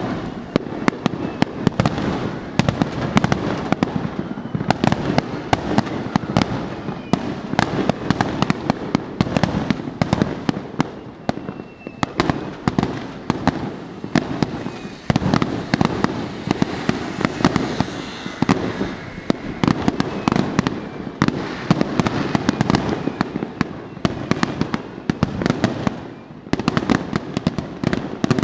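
Finale barrage of aerial fireworks: a continuous rapid run of overlapping shell bursts, bangs and crackles with no gap.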